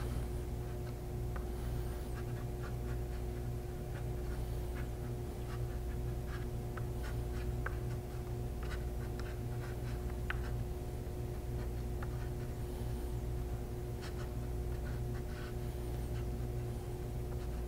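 Razor blade scraping and dragging across painted illustration board in many short, irregular strokes, lifting paint off the surface. A steady low hum runs underneath.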